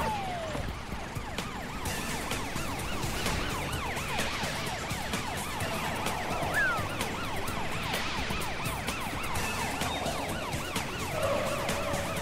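Emergency-vehicle sirens sounding in a rapid rising-and-falling yelp as cartoon rescue vehicles drive out on a call.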